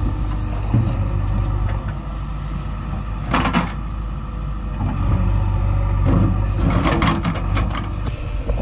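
JCB 3DX backhoe loader's diesel engine running steadily under load as the backhoe arm works. Two short noisy bursts break through, about three and a half and seven seconds in.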